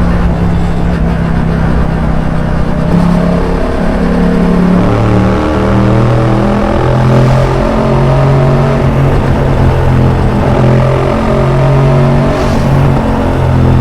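Yamaha MT-07's 689 cc parallel-twin engine running through an Arrow aftermarket exhaust while riding. The engine note holds a steady pitch for a while, then shifts up and down several times as the throttle changes.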